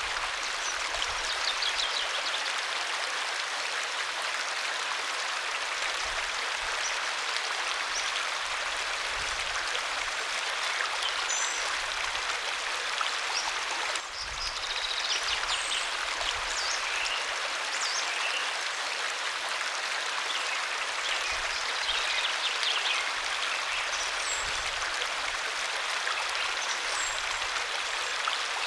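Waterfall: falling water rushing in a steady, even hiss, with short high chirps scattered over it and a brief dip about halfway through.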